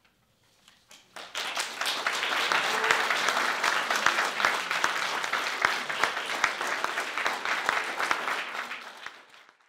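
Audience applauding, starting about a second in and swelling quickly, holding steady, then dying away near the end.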